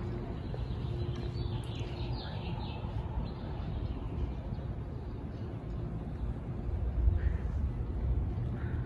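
Outdoor street ambience: a steady low rumble with a few short, high bird chirps about a second and a half in, and a couple more near the end.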